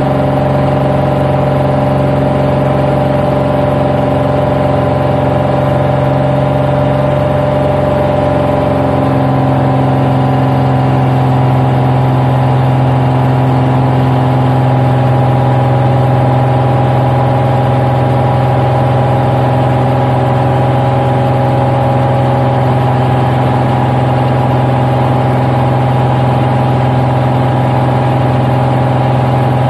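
Single-engine propeller aircraft heard from inside the cockpit in a climb: a loud, steady engine-and-propeller drone with a constant hum. About nine seconds in, the pitch shifts slightly, then holds steady again.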